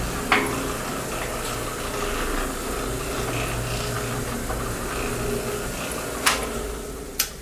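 Electric motor of a homemade half-yard cement mixer running the steel drum in reverse through V-belts and pulleys: a steady hum with a mechanical rumble. Two sharp clicks near the end as the reversing switch is worked, after which the running sound dies down.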